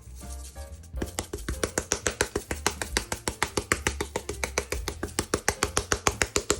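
Background music with a low bass line, joined about a second in by a fast, even run of sharp taps, several a second.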